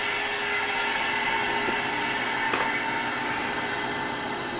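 Air hissing steadily into a Harvest Right freeze dryer's vacuum chamber through the opened drain valve, breaking the vacuum so the door can be opened; the hiss eases off slightly toward the end.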